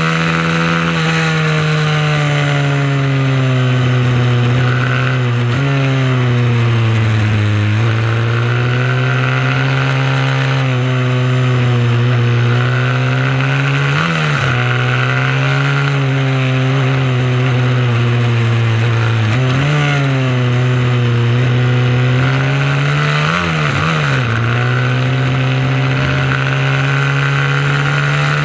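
Mini motorcycle race engine running hard and continuously, its revs sagging and climbing again and again as a lap goes on, with brief sharp jumps in pitch four times.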